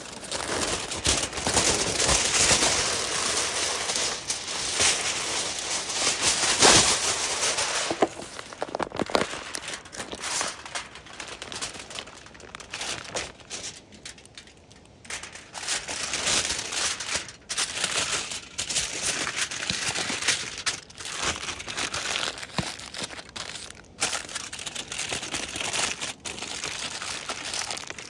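Aluminium foil crinkling as it is pulled off the roll, then handled and folded around a rack of ribs into a packet. Dense crinkling for the first several seconds, quieter in the middle, then bursts of crinkling and pressing again near the end.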